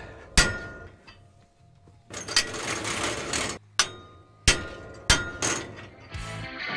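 Hammer blows driving a steel pivot bushing out of a John Deere 1590 drill row unit: one sharp ringing strike, a second or so of scraping and rustling, then three more strikes in quick succession. Music comes in near the end.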